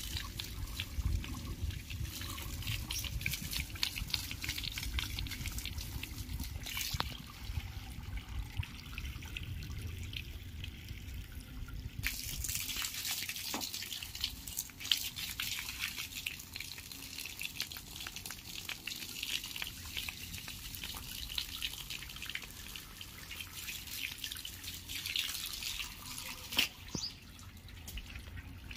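A stream of water splashing and pattering onto a German Shepherd's wet coat and the brick paving beneath it, continuous and uneven. The splashing thins out near the end as the water stops.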